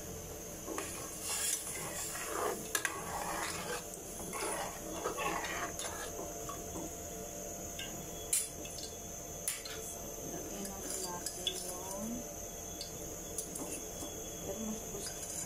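Kitchen utensils clinking and knocking against pots and dishes, with scattered short clatters, including metal tongs working in a cooking pot.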